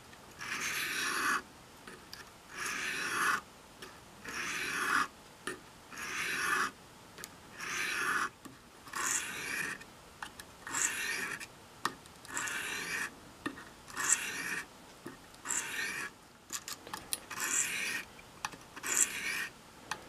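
Carbon-steel pocket knife blade being drawn across the medium stone of a Smith's Tri-Hone wetted with honing solution: a run of rasping strokes, about one a second, that get shorter and quicker in the last few seconds.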